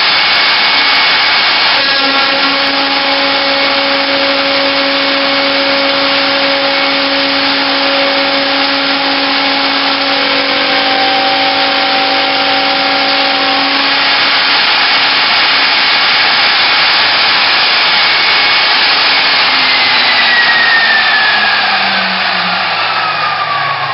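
CNC router spindle running at high speed while its end mill cuts slots in an aluminium profile: a loud, steady motor whine with cutting noise. Over the last few seconds the spindle winds down, its whine falling in pitch.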